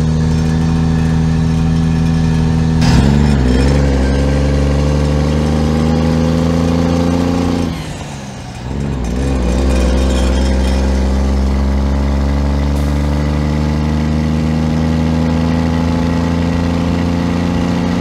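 Freightliner semi's 300 Cummins diesel engine, heard as a purr from its chrome exhaust stack while the truck pulls. Its revs climb steadily, fall away briefly about eight seconds in, then climb again.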